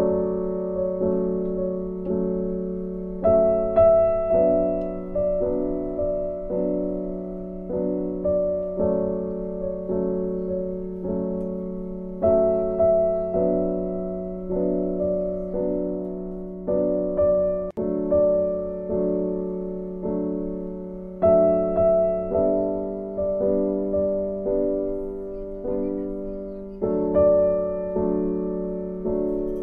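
Background piano music: a slow, gentle piece of single notes struck and left to fade, with its phrase coming round again about every nine seconds.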